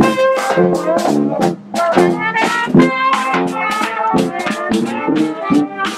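Small street brass band playing as it marches: a sousaphone bass line under trumpet and trombone, over a steady beat.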